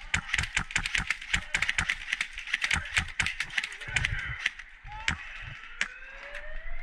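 Rapid, irregular sharp clicks and taps, several a second, that thin out after about four and a half seconds. Near the end a siren starts, rising in pitch.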